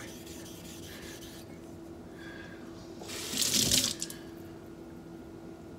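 A single stroke of a razor blade across a wet sharpening stone in a guided jig, a scraping hiss about a second long starting about three seconds in, over a low steady hum.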